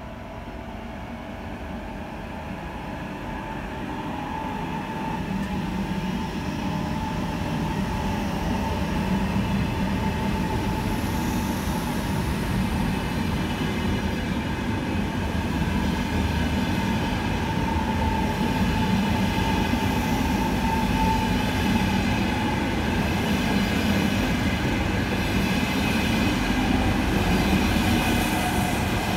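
ETR 485 Frecciargento electric high-speed train pulling out and running past at close range, its rumble of wheels on rail growing louder over the first several seconds and then holding. Several steady whining tones from the electric traction equipment sit over the rumble.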